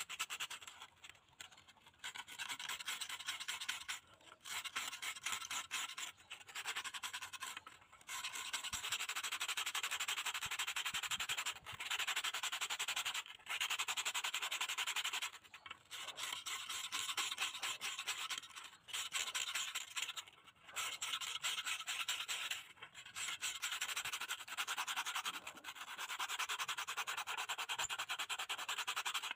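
Rapid back-and-forth scrubbing with an abrasive inside the rusty steel pan of an antique alcohol stove, taking the rust off the metal. The scratchy strokes run on steadily and stop briefly every couple of seconds.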